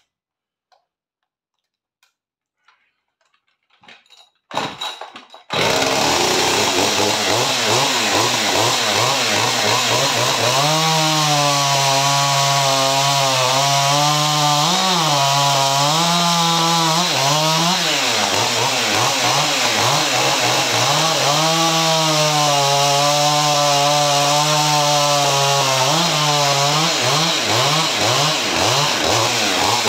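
Near silence for about five seconds, then a Husqvarna 550 XP Mark II 50 cc two-stroke chainsaw runs at high revs. About ten seconds in its engine note drops and wavers under load as it cuts into a log; it eases near 18 s and loads again about 21 s in.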